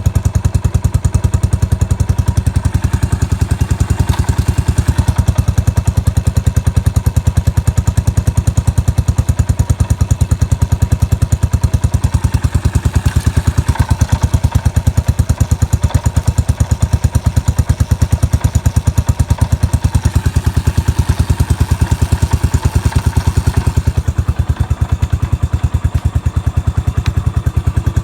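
Yamaha SR400's air-cooled single-cylinder four-stroke engine idling steadily, an even, rapid beat of exhaust pulses. The seller calls it free of abnormal noises.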